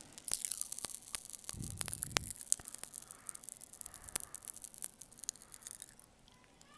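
Cola-flavoured popping candy crackling in the mouth: a dense run of tiny sharp pops and crackles, with a low muffled thump around two seconds in. The crackling stops about six seconds in.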